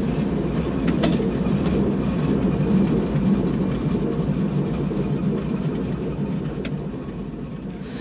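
Floatplane's propeller engine running, heard from inside the cabin as the plane moves on the water: a steady low drone that eases down over the last few seconds.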